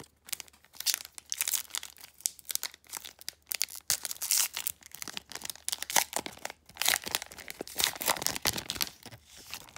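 Plastic trading-card pack wrapper crinkling and tearing as it is opened: a dense, irregular run of crackles.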